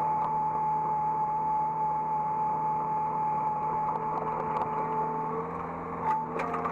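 Hydraulic excavator's diesel engine running with a steady high whine from the hydraulics, which drops away a little after five seconds; a few sharp clicks or knocks follow near the end.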